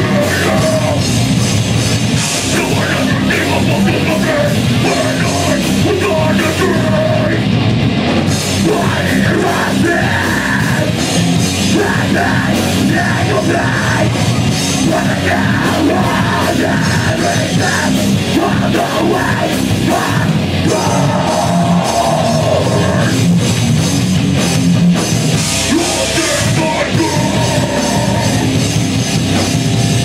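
Heavy metal band playing live and loud: distorted electric guitars and a drum kit, with a vocalist shouting over them.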